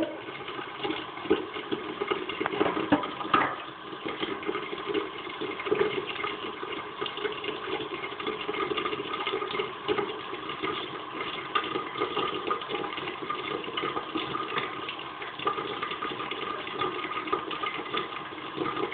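A tap running steadily into a sink, with a few small knocks in the first few seconds.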